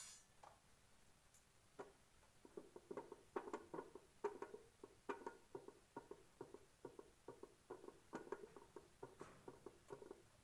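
Faint, irregular tapping and clinking of roti-making utensils, a wooden rolling pin and metal tongs, against steel plates, a few taps a second, starting about two seconds in.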